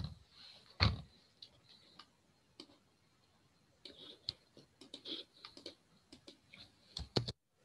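Scattered clicks and taps of a computer mouse and keyboard: two louder knocks in the first second, a cluster of lighter clicks about four to six seconds in, and two sharp clicks near the end.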